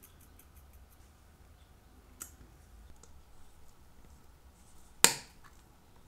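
A single sharp snap about five seconds in, as gloved fingers press the lid of an AS 1130 watch movement's mainspring barrel into place. There are faint light ticks in the first second and a smaller click about two seconds in.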